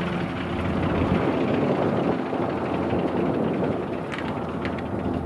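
Shvetsov ASh-62 nine-cylinder radial engine of an Antonov An-2 running steadily at low power, its propeller turning.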